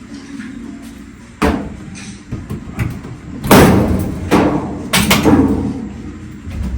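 Whirlpool clothes dryer running with a steady low hum, broken by several loud, irregular knocks and bangs, the loudest about halfway through.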